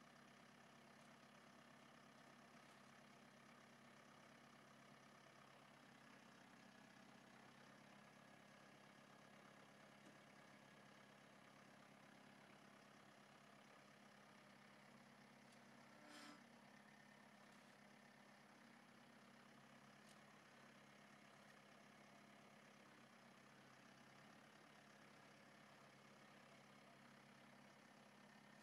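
New Holland Boomer 3045 compact tractor's diesel engine idling steadily, heard faintly. A single short click a little past halfway.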